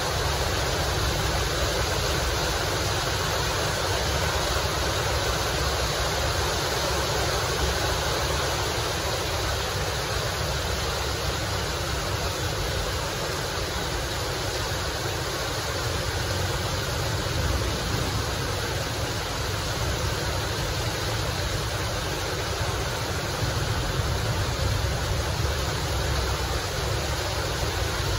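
A steady hiss of noise, even and unbroken, with no distinct knocks, calls or voices standing out of it.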